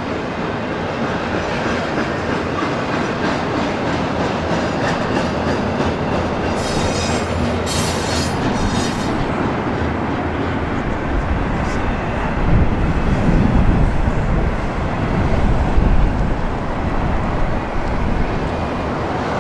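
Double-stack intermodal freight train rolling past at about 30 mph: a steady rumble of wheels on the rails with clickety-clack. A deeper rumble swells in the second half.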